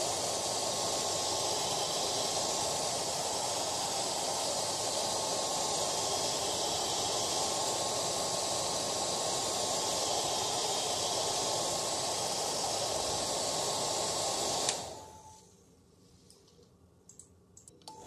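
Hair dryer blowing with a steady hiss and a faint, constant whine. It cuts off about fifteen seconds in and dies away within a second, leaving near quiet.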